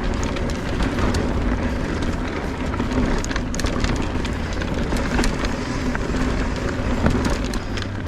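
Orbea Rallon full-suspension mountain bike descending fast on a rocky dirt trail: a steady rumble of tyres over dirt and rock with frequent sharp clatters from the bike and rocks underneath.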